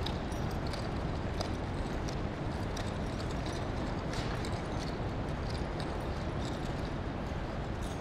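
Hoofbeats of a saddled paint filly cantering on the lunge over soft arena dirt: short, irregular footfalls over a steady background rush.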